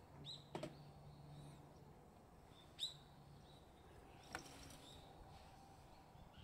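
Near silence: quiet room tone with a low hum, a few faint short high chirps (the clearest about three seconds in) and a couple of soft clicks.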